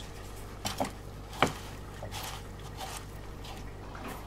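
Hands handling salted, thinly sliced raw potatoes in a wooden bowl: soft wet squishing with a few light clicks, the sharpest about a second and a half in.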